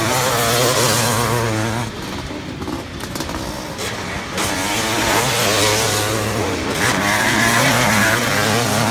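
Vintage Honda motocross bikes racing past, engines revving up and down as the riders change throttle. The sound dips about two seconds in, then grows louder again as a bike comes close near the end.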